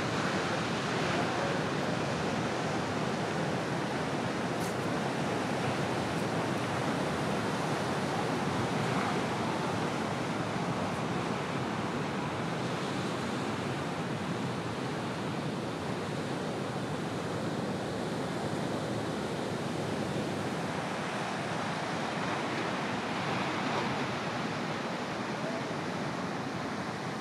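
Ocean surf: waves breaking and washing in at a point break, a steady rushing roar that swells louder now and then as sets break.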